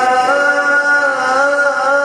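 Male Quran reciter in the melodic Egyptian mujawwad style, holding one long ornamented sung note whose pitch wavers slowly up and down.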